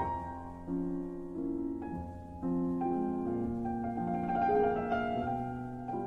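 Background music: a slow, gentle piano piece, notes changing about every half second.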